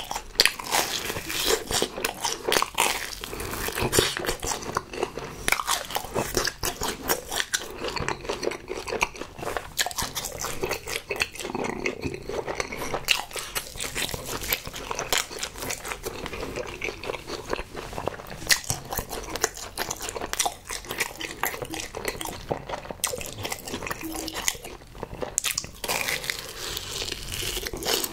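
Close-miked crunchy biting and chewing of a fried, breaded hot dog on a stick, with rapid crisp crackles from the fried coating.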